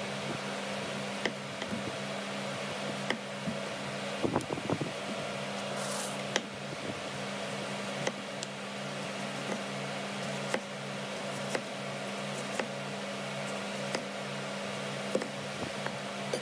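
Kitchen knife slicing a tomato on a bamboo tray, with scattered soft cuts and taps of the blade on the wood, over a steady fan-like hum.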